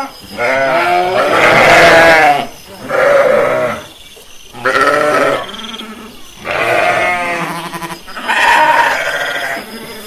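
Several sheep bleating: about five long, quavering bleats that follow one another a second or two apart.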